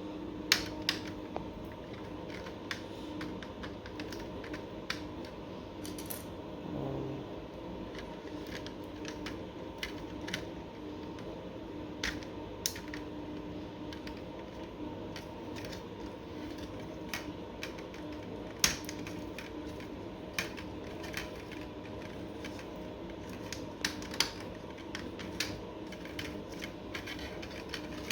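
Modular wine rack connector pieces being fitted and slid onto the bottle holders: scattered, irregular clicks and taps, a few sharper than the rest, over a steady faint hum.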